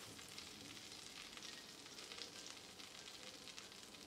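Butter sizzling faintly in a frying pan under a toasting sandwich, a steady light crackle.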